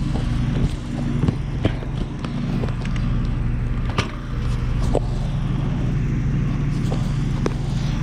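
Steady low hum of an outdoor heat pump unit running in its defrost cycle, with several sharp clicks scattered through it.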